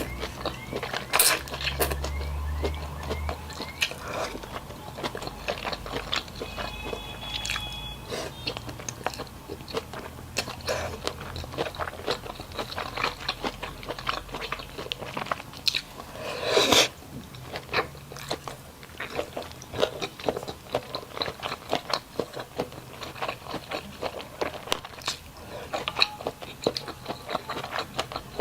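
A person eating with crunchy bites and chewing: many short crackly crunches in quick, uneven succession. There is one louder, longer noisy burst a little past halfway.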